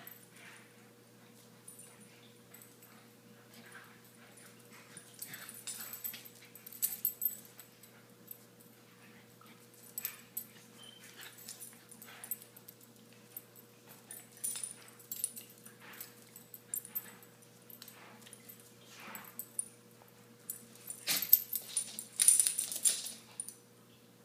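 Two small dogs play-fighting, whimpering in short scattered bursts with scuffling sounds, busiest and loudest near the end.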